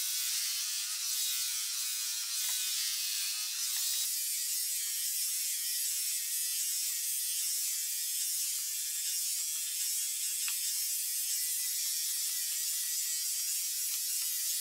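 Electric horse clippers running steadily as they cut through a horse's coat, an even mechanical buzz.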